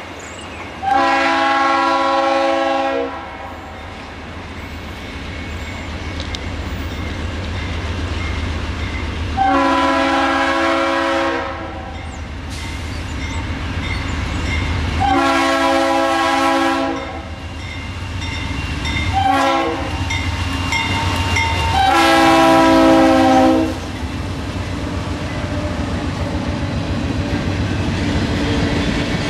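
Approaching diesel freight locomotive sounding its multi-note air horn in five blasts, the fourth one short, ending in the long-long-short-long grade-crossing signal, over a steady low engine rumble. After the last blast the train rolls past with a steady rumble of freight cars on the rails.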